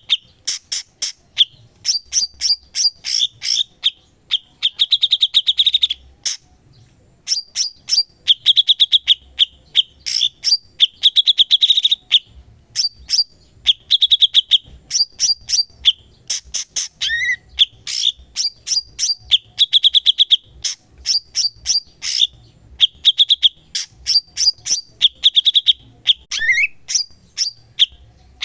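Cucak cungkok songbird singing continuously. About once every two or three seconds it gives a fast buzzy trill lasting about a second, and between the trills come rapid sharp chirps and clicks. Twice it gives a short rising whistle.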